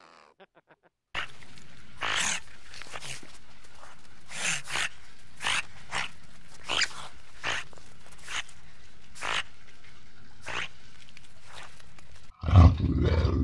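Otter calling in a series of short, sharp cries, about one a second, over a steady background hiss. Near the end a loud low rumble cuts in.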